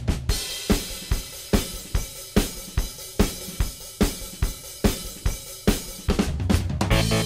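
Rock drum beat for an intro: heavy regular hits under a constant cymbal wash, coming straight out of a quick drum fill. About six seconds in, bass and guitar come in and the music fills out.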